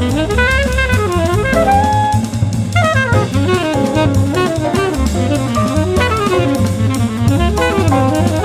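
Background jazz music: a saxophone-like lead melody over bass and drum kit with a steady beat.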